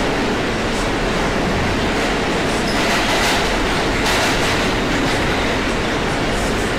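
New York City subway car running at speed, heard from inside the car: a steady rumble and rattle that swells slightly a few seconds in.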